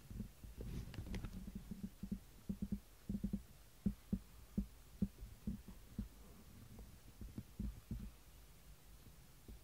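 Soft, dull thumps and knocks at an irregular pace as a cat steps and shifts its weight on a wooden cat tower; they come thick in the first second or so, then spread out, and grow sparse near the end.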